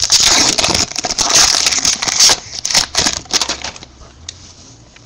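Foil trading-card pack wrapper being torn open and crinkled: a dense crackle for about two seconds, then scattered rustles and clicks that die away about four seconds in.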